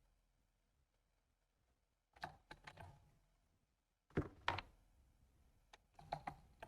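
Computer keyboard being typed on in three short bursts of a few keystrokes each, with pauses between.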